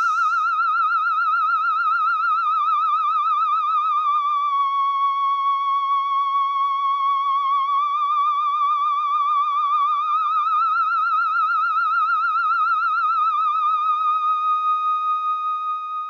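A single eerie electronic tone with a fast, even wobble, in the manner of a theremin, sliding down a little in pitch about four seconds in and climbing back a few seconds later.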